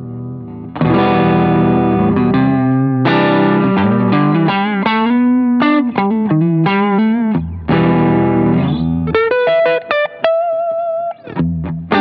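Electric guitar played through a Fulltone Mini Deja'Vibe uni-vibe pedal and a Line 6 HX Stomp, with slight overdrive. A note rings out, then from about a second in comes a phrase of plucked notes and chords with wavering pitch, ending in high held notes near the end.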